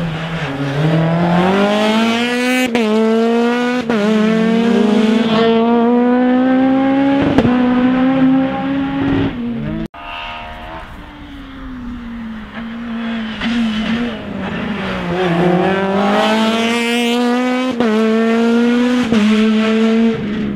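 Honda Civic Type R R3 rally car's four-cylinder engine at full throttle, its pitch climbing through each gear and dropping sharply at several quick upshifts. The sound cuts off abruptly about ten seconds in, then the engine eases, pulls hard again and shifts up twice more.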